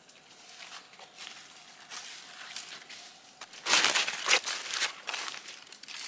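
Rustling and crunching of dry forest leaf litter, with a few loud, quick crackles about four seconds in.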